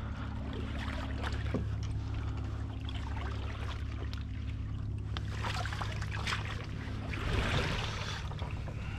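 Stream water running fast past a wooden footbridge, with a steady low hum underneath and scattered knocks and taps. A louder rush of noise comes about seven and a half seconds in.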